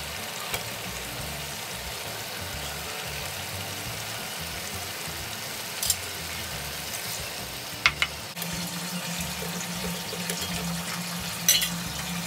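Fried rui fish pieces, flat beans and potatoes sizzling steadily in a steel pan of curry, with a few sharp clinks of a spatula against the pan.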